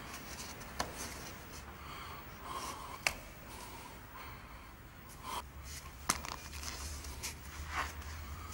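A climber's short, hissing breaths and gasps of effort while climbing, with three sharp knocks against the rock.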